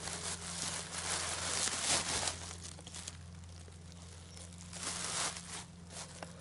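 Bubble wrap crinkling and rustling as hands rummage through it and handle a used brake caliper. It comes in bursts through the first three seconds, goes quieter, then comes again about five seconds in.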